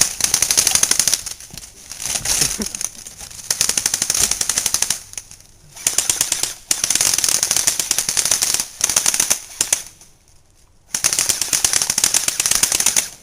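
Airsoft electric rifles firing on full auto in several bursts of rapid, high-pitched clicking, with short pauses between them.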